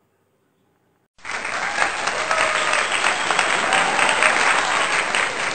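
A crowd applauding, the clapping starting suddenly about a second in after a moment of silence and going on steadily.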